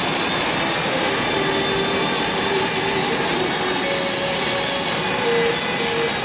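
Electric ducted-fan jet of an FMS F/A-18 RC model running at power as it rolls down the runway: a steady high whine over a rushing airflow.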